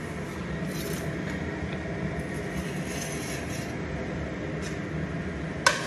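Steady mechanical hum, with one sharp clink near the end.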